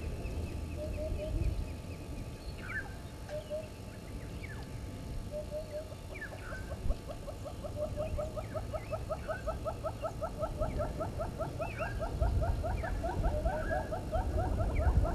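Wild birds calling: a low note given in short pairs every second or so, then from about six seconds in a long, fast, even run of notes, about five a second, with scattered higher chirps over a low rumble.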